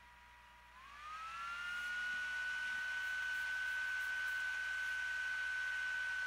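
A high steady whine that glides up in pitch and grows much louder about a second in, then holds at one pitch.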